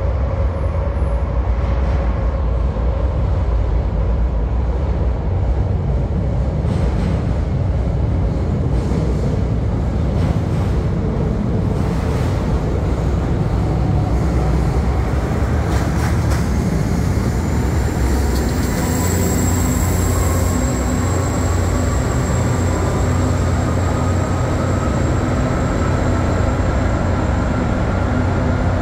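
Montreal Métro maintenance vehicle running along the track through the station, a steady heavy rumble. In the second half a faint whine rises slowly in pitch.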